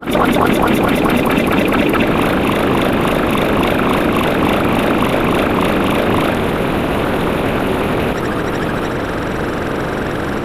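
A loud, steady engine-like sound effect, pulsing rapidly over the first few seconds, then running on evenly with a slight change about eight seconds in.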